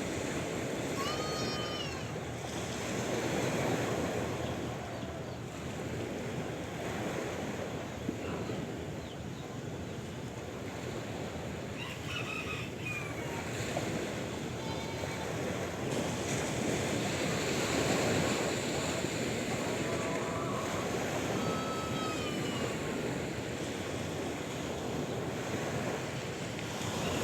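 Sea waves washing in steadily, with a few short high calls heard now and then above the surf.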